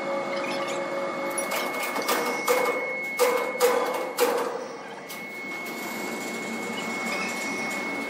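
Large horizontal band sawmill running with a steady hum and a thin high whine, with a run of sharp knocks and thumps from about one and a half to four and a half seconds in.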